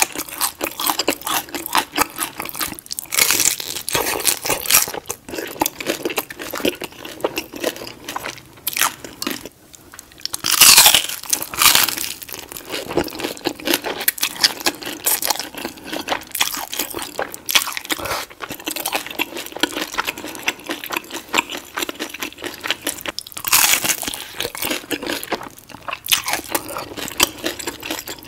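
Close-miked eating of crisp-fried birria tacos: repeated crunching bites into the crispy tortilla and chewing, full of crackles, louder in a couple of stretches.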